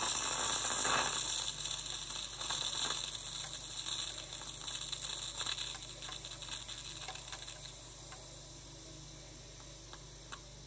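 Tassimo pod coffee machine falling quiet just after brewing: a hiss that fades away over several seconds, with faint crackles and drips from the spout into the full mug, and two small ticks near the end.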